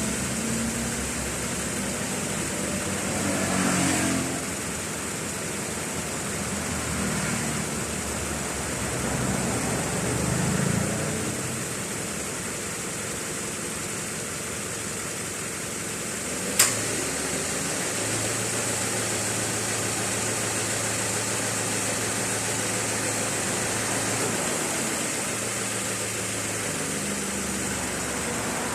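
Subaru Forester 2.0's flat-four engine idling with the air conditioning on. About two-thirds of the way through, a sharp click marks the Valeo vane-type AC compressor kicking in. A steady low hum follows for about seven seconds and cuts off near the end: the worn compressor's 'cicada' noise while it runs.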